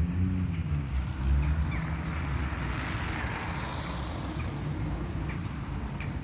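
An engine passing by, its sound swelling and then fading, with a few faint short bird chirps.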